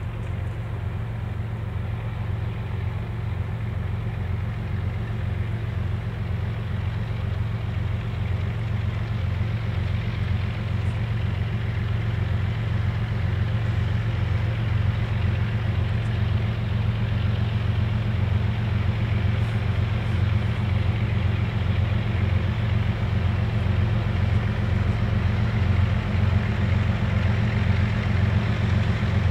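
Diesel engines of several BNSF freight locomotives leading a train of tank cars, a steady low rumble with a throb, growing louder as the train approaches.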